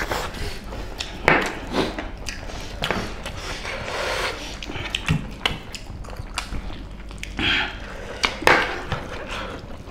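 Eating sounds from two people eating mutton and pork curry with rice by hand: irregular chewing and mouth noises, fingers squishing and mixing rice on plates, and scattered short clicks and taps.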